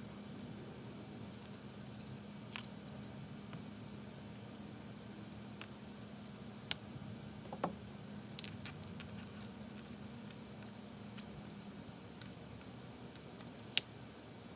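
Scattered light metallic clicks and taps of motorcycle transmission parts being handled and fitted during reassembly, a sharper click near the end, over a steady low hum.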